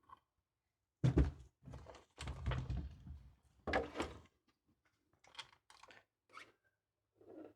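A few dull, loud thunks and knocks of hard objects being handled and set down in the first half, then fainter clicks and taps.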